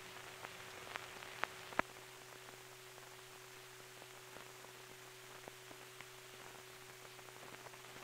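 Faint hiss and a steady low hum of an old film soundtrack with no programme sound, broken by a few scattered clicks in the first two seconds and one more about six seconds in.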